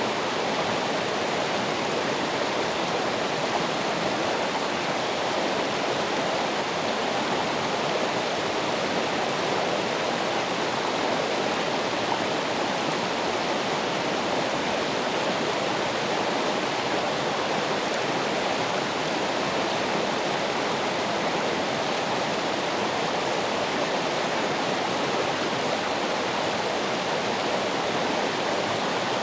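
Running water rushing steadily and evenly, with no change or other sound.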